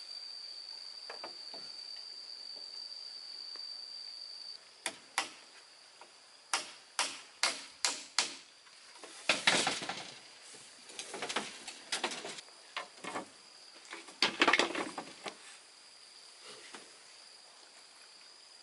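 A steady high insect trill, then a run of sharp knocks about two a second, followed by several longer, louder bursts of rough noise, the last of them the loudest.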